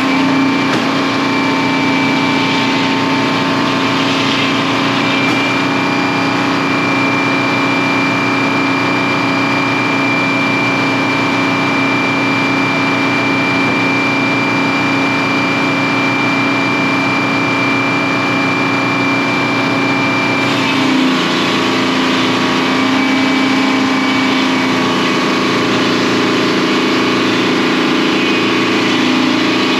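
Sawmill's stationary diesel engine running steadily under load, driving the mill. A high steady whine holds through the middle and stops about two-thirds of the way through, where the engine sound shifts.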